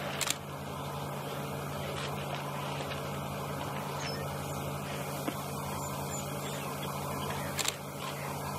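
A steady low hum under faint outdoor noise, with a brief splash just after the start and another short sharp noise near the end.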